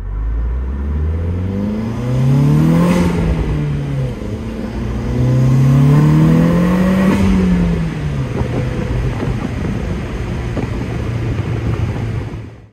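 Tuned 1997 Audi 80 Cabriolet 1.8 20-valve turbo four-cylinder with a custom exhaust, heard from the open cabin while driving. It pulls twice, each time rising in pitch with a brief rush of noise near the top and then falling away, and then runs at a steady cruise.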